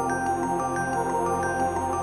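Background electronic music with sustained synth notes over a steady pulse.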